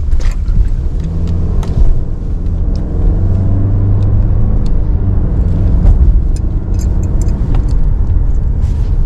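Car driving, heard from inside the cabin: a steady low engine and road rumble, with scattered light clicks and rattles.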